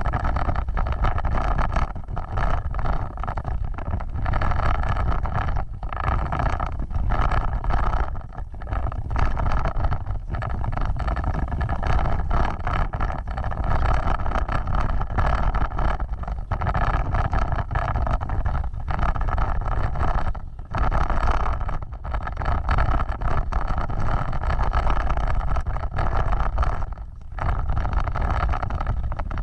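A vehicle driving off-road, its engine running steadily with heavy low rumble, the sound dipping briefly every few seconds.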